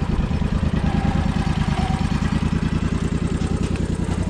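Zero-turn lawn mower engine idling steadily.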